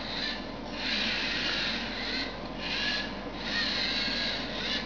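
LEGO Mindstorms NXT robot's servo motors whirring through their gears in several short runs with brief pauses between, as the robot drives and turns to scan for obstacles.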